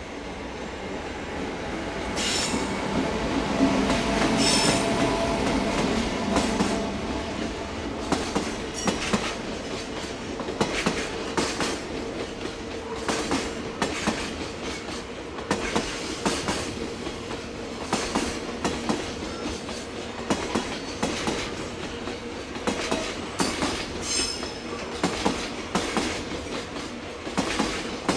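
An EF510 electric locomotive hauling a freight train past at speed: the locomotive's running sound swells to its loudest about four to six seconds in, then the wagons roll by with a long, irregular run of wheel clicks over rail joints.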